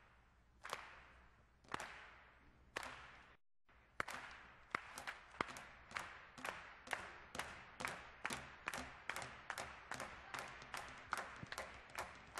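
Rubber balls on strings bounced in rhythm as a percussion routine: single sharp bounces about once a second, then, after a brief dropout, a quicker steady beat of roughly three bounces a second from about four seconds in, each hit ringing briefly in the hall.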